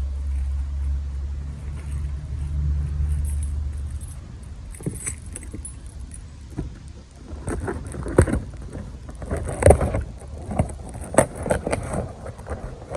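Cardboard box being handled and opened, with rustling and a clatter of the loose parts inside, mostly from about seven seconds in. A low steady rumble fills the first four seconds.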